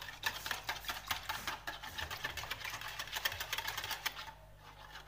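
Wire whisk beating milk and egg by hand in a plastic bowl: rapid, steady clicking of the wires against the bowl, stopping about four seconds in.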